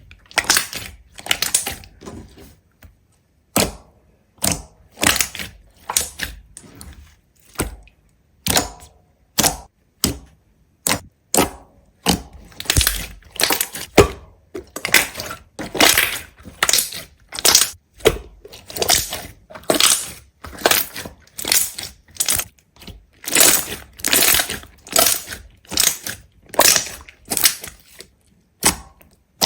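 Repeated crisp crunches, something brittle being crushed or broken, at about one to two a second with short pauses between.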